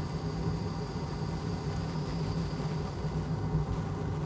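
Steady low hum of running workbench equipment. A faint high whine fades out about three and a half seconds in.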